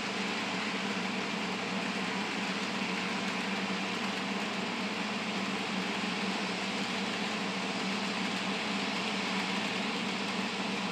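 HO scale model freight train running on the layout track, a steady hum and rumble from the locomotive's motor and the cars' wheels rolling on the rails.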